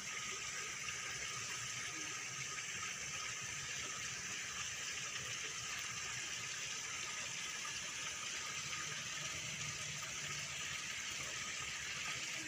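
Steady splashing and gushing of water from the many small spray jets aerating a fish pond.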